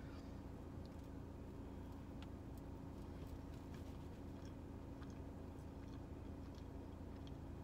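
Steady low hum inside a parked car, with faint scattered clicks of chewing and tearing pieces off a donut.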